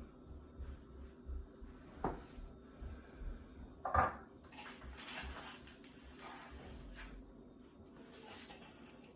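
Clatter of dishes and serving utensils as food is put onto plates: two knocks, the louder about four seconds in, followed by a few seconds of light scraping and rustling.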